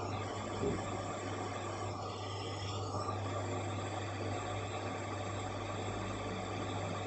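Handheld gas soldering torch burning with a steady hiss as its flame heats solder paste on a gold-filled ring seam, over a steady low hum.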